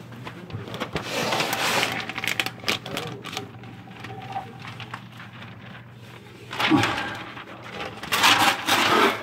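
Bursts of rustling and rubbing noise, loudest near the end, over a steady low hum.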